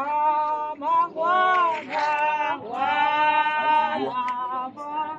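A voice singing a short hymn line in several phrases, two notes drawn out for about a second each, rising and falling gently.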